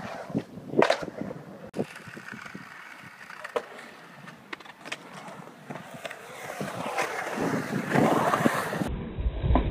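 Skateboard wheels rolling on concrete bowl surfaces, broken by several sharp clacks of boards and trucks striking the concrete. The rolling grows louder a few seconds before the end.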